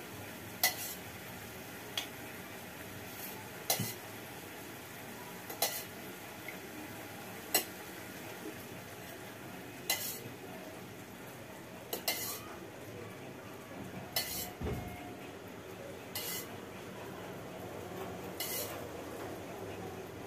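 A steel spoon clinks against a small steel bowl and a steel can while ghee is scooped out to measure it, with a sharp clink about every two seconds. Under it runs a low steady hiss from the stove.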